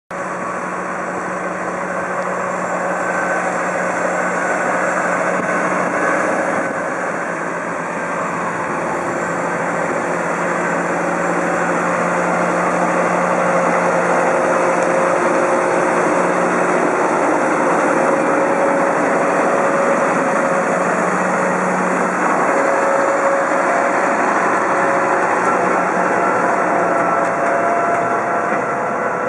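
A John Deere tractor's diesel engine running steadily under load as it works a JF Z200-Hydro/E energy-willow harvester, under a dense mechanical din. The engine pitch drifts slightly up and down.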